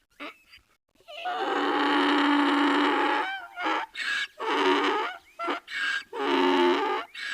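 Donkey braying: a long drawn-out call, then a run of shorter calls alternating back and forth in the hee-haw pattern.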